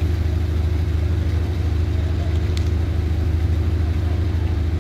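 Boat engines running with a steady, loud low drone as a fast passenger ferry pulls away from the quay.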